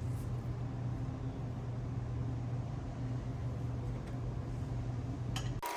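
Steady low background hum, like a fan or appliance motor running in a small room. Near the end, a sudden burst of hiss with a faint steady tone cuts in.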